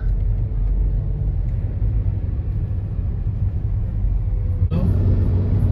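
Inside a moving car: steady low road and engine rumble. About four and a half seconds in, the noise gets louder and fuller.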